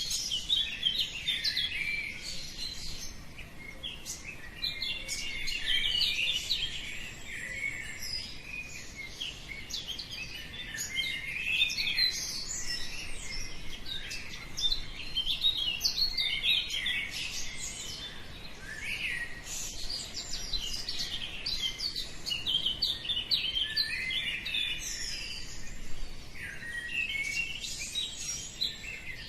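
Many birds chirping and singing at once, a dense chorus of overlapping short calls and trills at sunrise.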